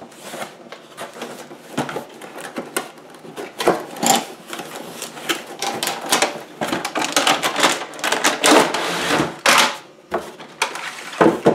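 Packaging of a camera accessory kit being opened and handled, with a dense, irregular run of clicks, rustles and crinkles.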